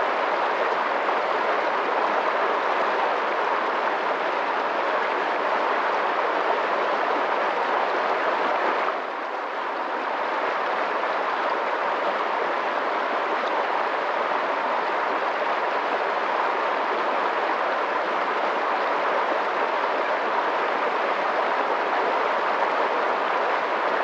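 Fast-flowing water rushing steadily, an even hiss with no breaks, dipping slightly in level for about a second around nine seconds in.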